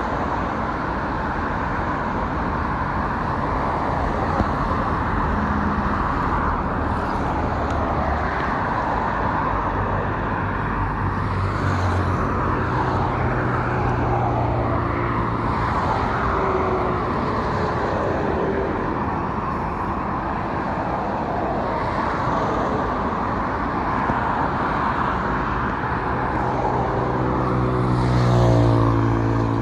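Steady hum of highway traffic: tyres and engines of cars passing continuously. One vehicle's engine drone swells and is loudest near the end as it passes close.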